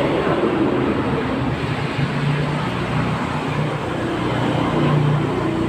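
Steady low mechanical rumble, with a low droning tone that swells twice, about two seconds in and again near the end.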